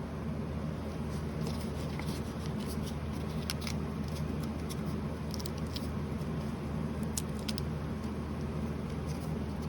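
Lathe motor running steadily, with scattered light clicks and scratches as used 500-grit sandpaper is held to the spinning bicycle hub bearing cone to polish its reground race.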